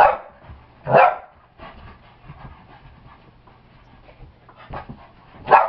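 Boston terrier barking three times in short sharp barks, at the start, about a second in and near the end, with quieter panting between as it jumps at a balloon.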